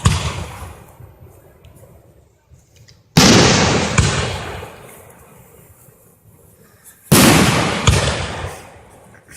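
Fireworks going off: sudden loud bangs about every four seconds, each dying away over a couple of seconds of rumbling echo. The second and third bangs are each followed by a sharper crack under a second later.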